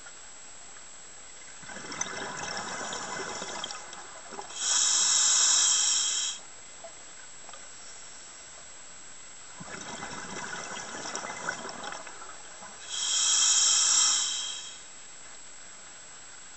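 A scuba diver breathing on a regulator underwater: two breaths, each a hissing draw of air followed by a louder burst of exhaled bubbles.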